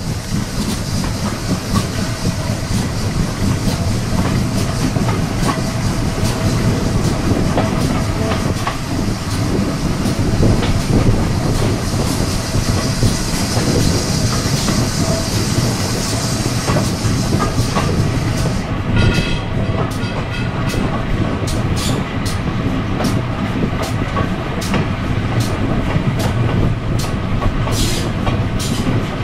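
Heritage railway coach running along the line, heard from an open window: a steady rumble of wheels on the rails with wind rush, and the wheels clicking over rail joints. The high hiss drops away about two-thirds of the way through, leaving the clicks standing out more plainly.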